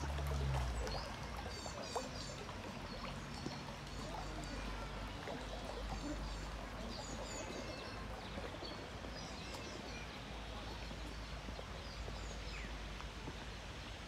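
Small birds chirping and twittering again and again over a steady outdoor hiss. In the first seconds a garden fountain splashes into its stone pool.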